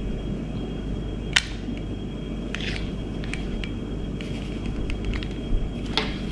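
Ledlenser MH5 headlamp and its magnetic charging plug being handled: sharp plastic clicks as the plug is put to the lamp housing and taken off, one about a second and a half in and another near the end, with lighter ticks between. A steady low rumble runs underneath.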